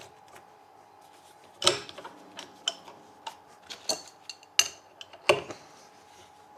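Metal tools and parts handled on a workbench: about half a dozen scattered clinks and clicks over a faint steady hum.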